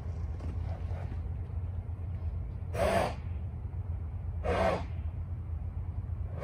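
Horse snorting twice: two short, noisy blows through the nostrils about a second and a half apart, over a steady low rumble.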